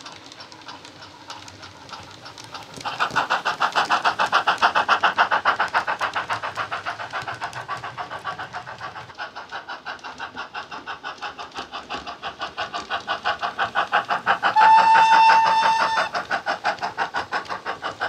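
Sound decoder in a Hornby OO model of a GWR Castle Class 4-6-0 steam locomotive, playing steam exhaust through its small speaker: rapid, even chuffs that get much louder about three seconds in. Around three-quarters of the way through, a single steady whistle blast sounds for about a second and a half over the chuffing.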